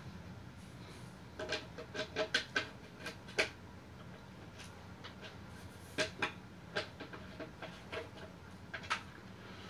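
Light knocks and clicks of hands handling flat-pack desk panels, in two spells of a few seconds each: one starting about a second and a half in, the other about six seconds in.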